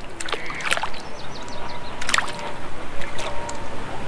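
Water splashing and sloshing close beside an inflatable pontoon kickboat, with scattered sharp clicks and taps.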